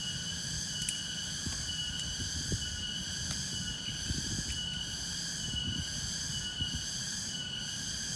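Night insect chorus: many insects trilling steadily in several shrill pitches, over a low rumble.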